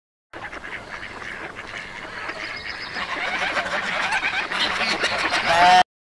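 A flock of gulls calling, many short overlapping calls growing louder, with one loud call near the end before the sound cuts off suddenly.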